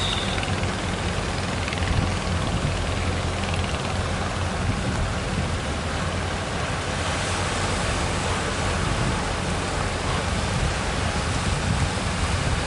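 Sea waves breaking on a beach: a steady, unbroken wash of surf noise with a deep rumble underneath.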